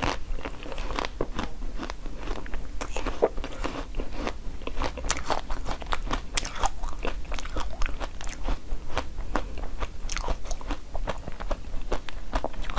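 Close-miked eating: a mouth biting and chewing frozen treats, with many quick, irregular crunches throughout.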